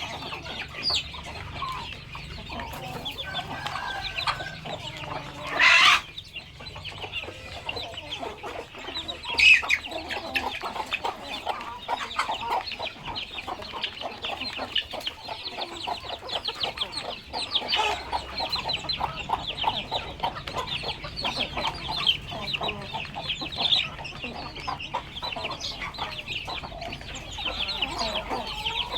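A flock of chickens clucking continuously, with dense quick calls throughout and two brief louder calls about six and nine and a half seconds in.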